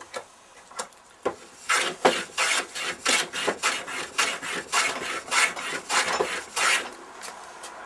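Wooden board being planed along its edge with a No. 4½ smoothing plane: a run of short, quick strokes, about four a second, begins about two seconds in after a few light taps and stops shortly before the end. The strokes are kept short to even up the edge while it is brought down to the gauge line.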